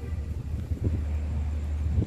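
Large intercity bus's diesel engine running with a low, steady rumble as the bus rolls slowly forward.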